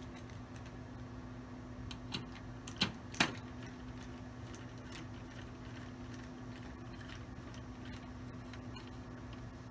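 Three short, sharp clicks about two to three seconds in, the last the loudest, as a CPU card is handled and fitted into a Sun Fire V440 server chassis, over a steady low hum.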